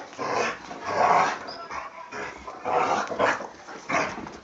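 Dogs play-fighting, giving out several short, loud barks and growls about a second apart.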